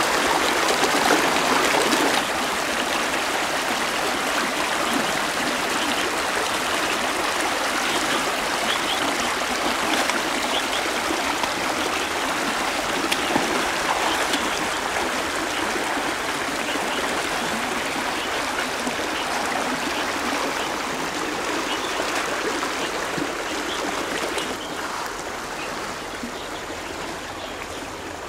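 Shallow river water rushing and trickling over rocks. It is louder with splashing for the first couple of seconds as a clam is swished through the water. There are occasional small splashes from wading, and the rush grows a little softer near the end.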